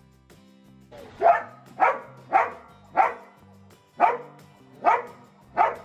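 Belgian Malinois barking at a closed door, seven barks in a loose rhythm about half a second to a second apart: demand barking to be let in.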